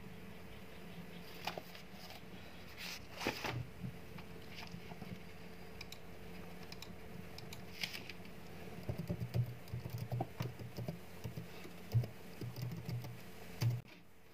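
Faint scattered clicks and soft taps of typing on a computer keyboard, thickest in the last few seconds, with light paper rustles of a notebook being handled at first, over a faint steady hum.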